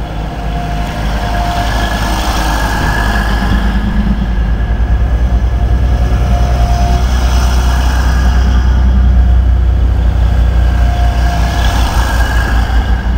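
Grand Central Class 180 diesel multiple unit pulling out under power close by, its underfloor diesel engines and carriage wheels making a low rumble that grows louder over the first several seconds. A faint whine comes and goes as the cars go past.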